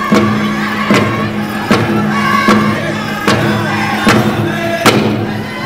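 Round dance song: hand drums struck together in a steady beat, about one stroke every 0.8 seconds, under a group of voices singing.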